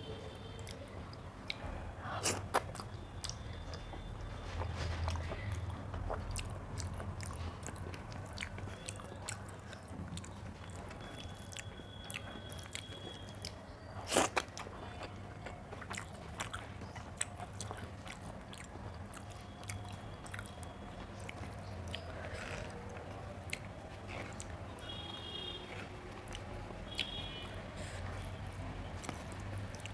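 Chewing and biting food, with wet mouth sounds and occasional sharp clicks over a low steady hum.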